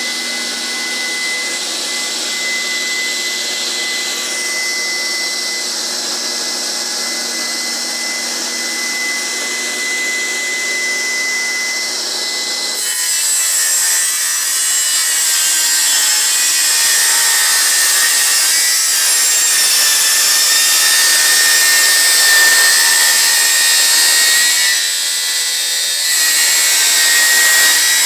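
Homemade bench table saw with the blade spinning at a steady whine, then ripping wood into thin strips: a rougher, louder cutting sound with the whine pulled slightly lower under load. The cutting eases briefly near the end and then starts again.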